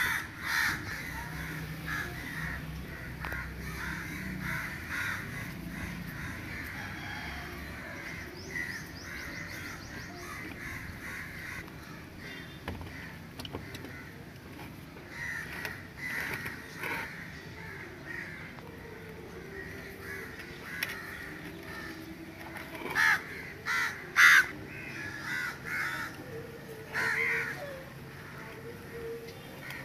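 Crows cawing again and again, with a few loud caws close together in the second half.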